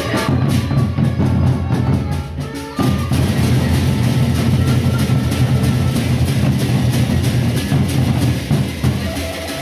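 Gendang beleq ensemble from Lombok: large barrel drums beaten in a fast, dense rhythm, with rapid metallic cymbal strikes above. The playing drops out for an instant about three seconds in, comes back fuller, and eases near the end.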